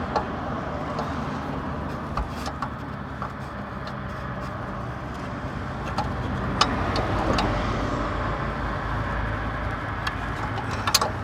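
Scattered small metallic clicks and taps of a wrench working a diesel heater's glow plug tight, over a steady low background rumble.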